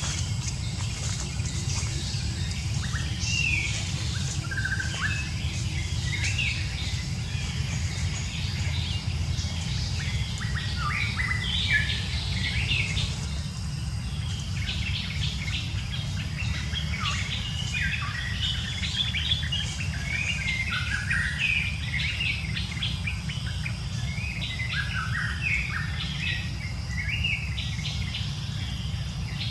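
Birds chirping: many short overlapping calls over a steady low rumble.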